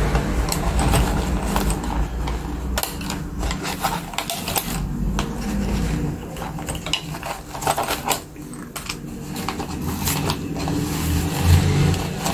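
Plastic doll packaging crackling and clicking in quick irregular bursts as accessories are worked loose from the tray, over a low steady rumble.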